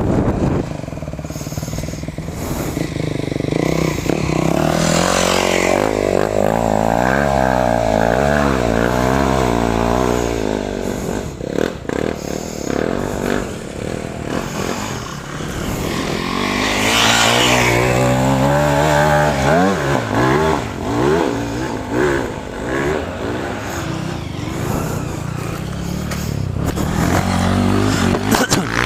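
Off-road motorcycle engines running and revving, their pitch rising and falling again and again as the bikes climb a trail slowly, with two longer stretches of hard revving.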